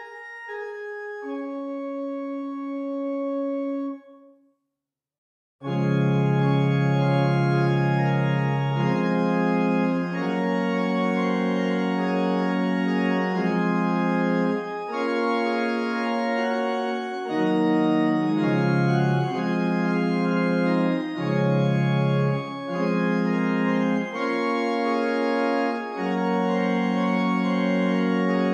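Organ music from the GrandOrgue virtual pipe organ, played on the manuals only with no pedals. A light, quiet passage stops about four seconds in, and after a pause of a second or so, louder, fuller chords with lower notes begin and carry on, changing every second or two.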